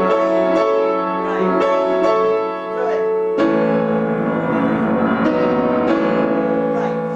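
Acoustic piano playing a chordal passage: a run of struck chords and notes, then a fuller chord about three and a half seconds in that is held and rings on.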